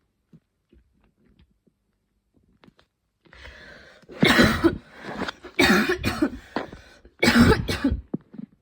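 A woman's intense coughing fit: near quiet at first, then three loud bouts of coughing in the second half, about a second and a half apart, with a smaller cough just before the end.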